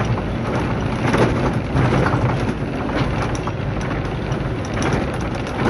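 A vehicle driving on a rough dirt road, heard from inside the cabin. The engine hums steadily, with irregular knocks and rattles from the bumpy road.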